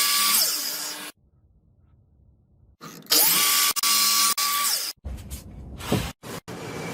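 Wood router motor whining at speed as it cuts wood, in two short bursts with a pause between; the second spins up at its start and winds down at its end. Choppier cutting noise follows with abrupt breaks.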